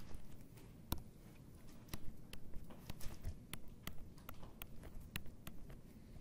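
Irregular clicks and taps of a stylus striking and sliding on a tablet screen while drawing, a few a second, with a sharper tap about a second in.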